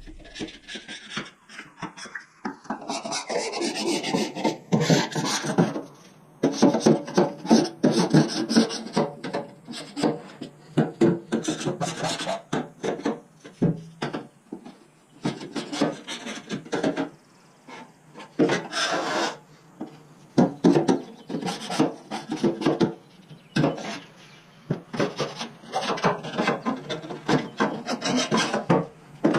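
Hand scraping inside a Southern Pride smoker: repeated rasping strokes of a tool against the cooking chamber's walls or floor, scraping off built-up sludge and patina. The strokes come in uneven runs with short pauses between them.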